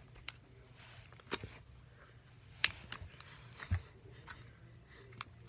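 A few scattered sharp clicks and taps, about four of them, from slime containers being handled and set down.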